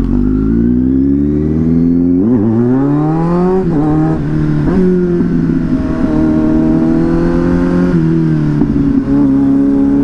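Kawasaki Z900's inline-four engine under way, heard from the rider's seat. The note falls as the bike slows, then climbs for about a second and a half and drops off sharply. After that it holds fairly steady at a light throttle, with a couple of brief dips.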